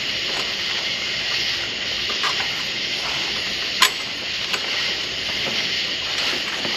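A steady hiss with a few sharp metallic clicks from parts and tools being handled in a truck's engine bay. The loudest click comes nearly four seconds in.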